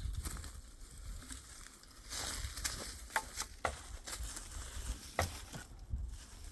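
Dry twigs and brush crunching and rustling, with several sharp snaps in the second half.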